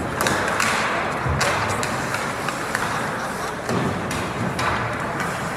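Ice hockey play in an indoor rink: skates scraping across the ice in repeated swells, with sharp clacks of sticks and puck.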